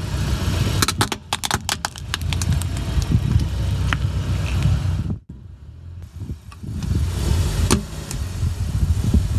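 Car tyre rolling slowly over asphalt and crushing plastic swim goggles: a quick run of sharp plastic cracks and snaps about a second in, over a low tyre rumble. After a brief drop-out, the tyre rolls onto a plastic bottle, with the rumble and a single sharp crack near the end.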